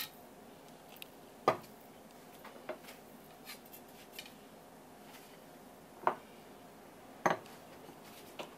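Sharp knocks and light taps on a wooden cutting board as a fish fillet is handled, the loudest a little over a second in. Two clacks in the second half as a porcelain plate is set down on the board.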